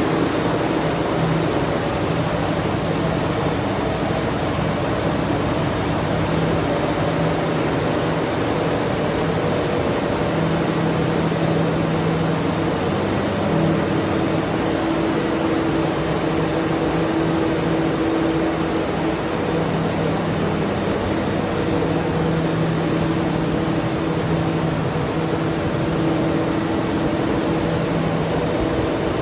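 Generator set running steadily: an even engine drone with a low, constant hum.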